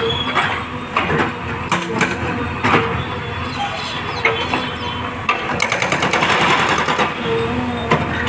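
Diesel engine of a wheeled JCB backhoe loader running steadily, with irregular sharp metallic knocks about once a second and a quicker run of strikes about two-thirds of the way through.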